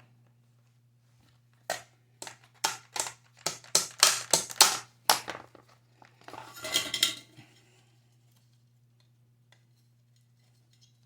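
Metal clinking and rattling as a gas water heater's burner assembly, with its tubes and thermocouple, is worked into the combustion chamber: a string of about a dozen sharp clinks, then a short scraping rattle about six seconds in.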